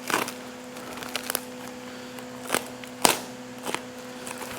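Packaging being handled while a box is opened: a handful of short rustles, creaks and light knocks of cardboard and styrofoam, over the steady hum of a fan.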